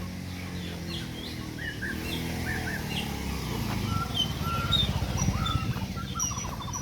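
Several birds chirping and whistling in short calls, with a fast trill near the end, over a low rumble that swells in the middle.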